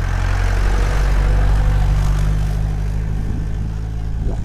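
Off-road jeep engine running steadily with a low hum, under a rushing noise.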